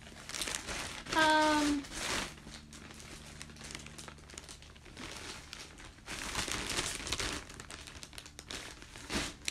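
Packaging crinkling and rustling in irregular handfuls as a mailed package is handled and opened by hand. About a second in there is a brief hum of voice.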